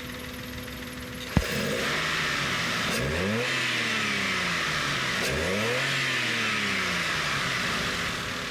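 Maruti Suzuki Wagon R K10 three-cylinder petrol engine idling steadily, with a sharp click about a second in, then revved twice, each blip rising quickly and falling back slowly to idle. It runs without misfiring now that the cracked number-two ignition coil has been replaced.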